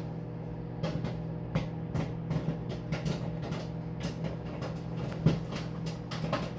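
Popcorn kernels popping irregularly, about two sharp pops a second, inside a running microwave oven, over the oven's steady electrical hum and fan.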